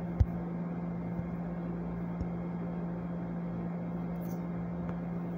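Steady low electrical hum over even background hiss, with one sharp click just after the start and a faint one about two seconds in.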